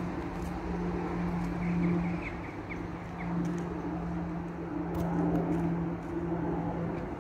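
A vehicle running with a steady low hum over a bed of noise. A quick run of short high chirps comes about two seconds in.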